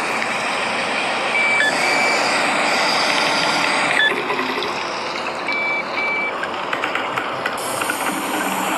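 Two pairs of short high electronic beeps about four seconds apart, typical of a bus's reversing beeper. They sound over a steady hiss of rain and traffic on a wet road.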